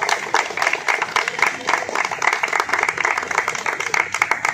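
A group of people clapping their hands, fast and dense, throughout.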